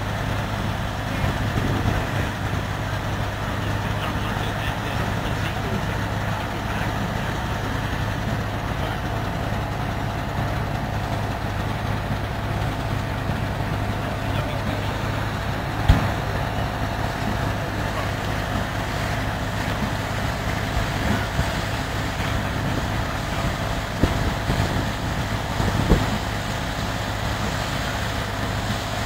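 Steady running of threshing machinery: a small belt-driven thresher, with tractor engines idling alongside. A few sharp knocks come through, one about halfway through and two near the end.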